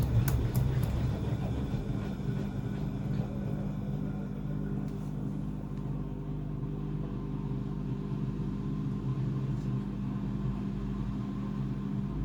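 Gorenje WaveActive washing machine spinning during an unbalanced intermediate spin: a few fading knocks of the drum in the first second, then a steady motor and drum hum.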